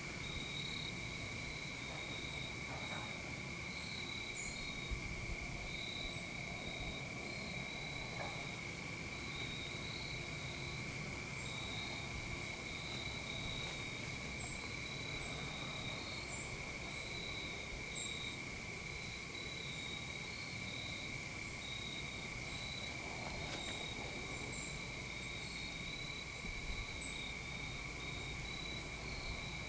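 Steady chorus of insects: an unbroken high drone with a pulsing trill just above it, and a few faint short chirps higher still.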